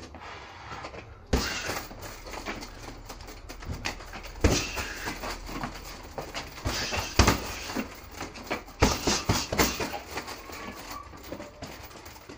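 Boxing gloves hitting a hanging heavy punching bag: irregular dull thuds, the loudest about a second and a half in, at four and a half seconds and at seven seconds, with a quick run of hits near nine seconds.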